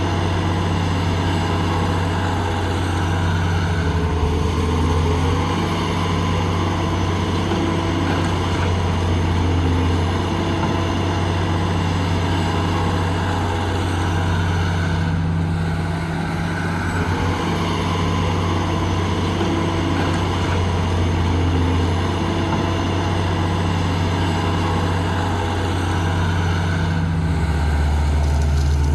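Heavy diesel engine of an excavator working: a steady low engine drone whose pitch and load shift every several seconds, with a clear change in the note near the end.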